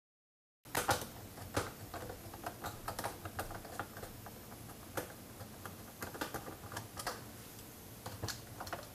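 Irregular small clicks and taps from hand disassembly: a screwdriver working on screws in a robot vacuum's plastic chassis while parts and screws are handled, a few sharp ticks a second. It cuts in abruptly after a moment of dead silence.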